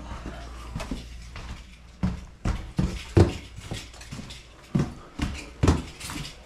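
Heavy footsteps going down a flight of stairs, starting about two seconds in as irregular thuds at roughly two a second.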